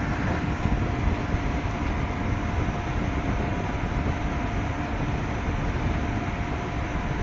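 Portable spot air conditioner running: a steady rush of fan air with a faint, steady hum from the machine.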